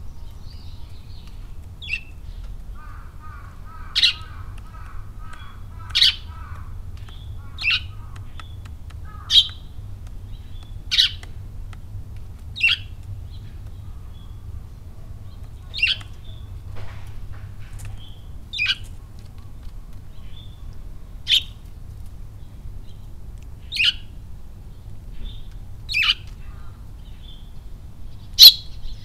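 Eurasian tree sparrow chirping: single short, sharp chirps about every two seconds, with a faint softer twittering in the first few seconds and quicker chirps near the end.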